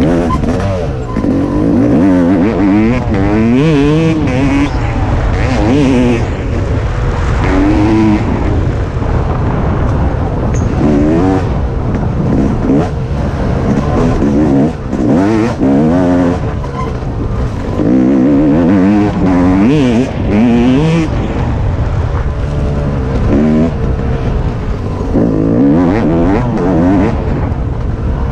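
Dirt bike engine revving up and down as it is ridden along a trail, its pitch rising and falling every second or two as the throttle is opened and closed.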